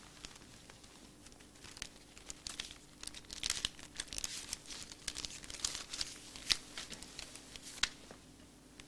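Paper banknotes crinkling as they are thumbed through and drawn from a wallet: a run of short, crisp crackles that starts about two seconds in and stops shortly before the end.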